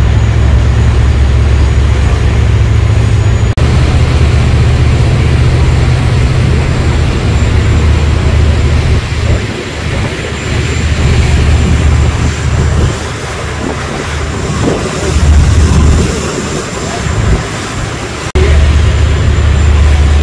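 Engines of a passenger tour boat running under way: a steady low drone under a rushing hiss. Through the middle stretch the drone dips and swells unevenly, then comes back steady near the end.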